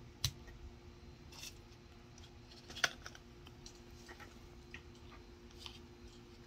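Plastic cups handled and set down on a glass tabletop: a few sharp clicks and knocks, the loudest about a quarter second in and just under three seconds in, with lighter taps between.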